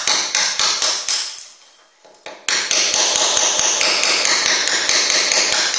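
Fast hammering into a masonry wall to break a hole through it: a run of sharp strikes that dies away, a lull of about a second, then a steady stretch of rapid strikes lasting about three seconds.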